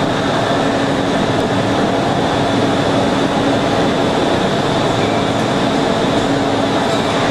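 CNC shaping lathe for turning porcelain insulators, running steadily: an even machine drone with a steady hum and a thin high whine over it.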